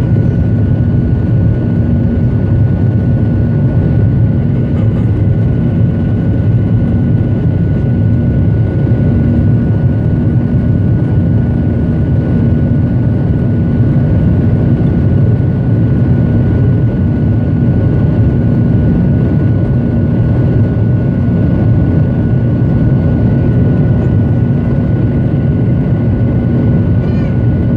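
Boeing 737 cabin noise heard from a window seat over the wing during the climb after takeoff: the steady drone of the turbofan engine and airflow, with a faint steady whine above it.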